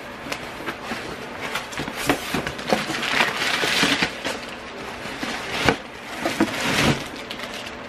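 Cardboard box flaps being pulled open and crumpled brown packing paper pulled out: a run of crackling and rustling with a sharp knock near the six-second mark.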